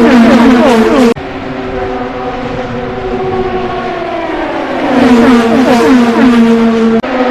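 IndyCar race car engines at high revs, the pitch repeatedly jumping up and sliding down as the gears change. One loud pass cuts off abruptly about a second in. A quieter engine note follows, and a second car comes through loud from about five seconds in.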